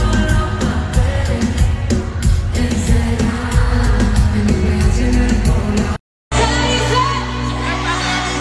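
Live reggaeton-pop concert sound: loud amplified music with a steady beat and a singer's voice over it. About six seconds in it cuts off abruptly for a split second and resumes on a different section of music.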